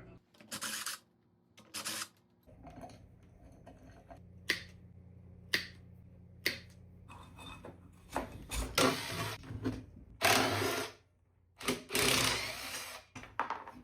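Power drill run in several short bursts of about a second each, with sharp clicks and knocks of tools on metal between them, while taking apart a 2 hp electric motor. A low steady hum runs underneath from about two seconds in.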